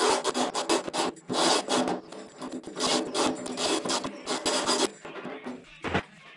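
A small hand file rasping back and forth in a hole in a metal car boot lid, in quick uneven strokes. The filing stops about five seconds in, and a single knock follows just before the end.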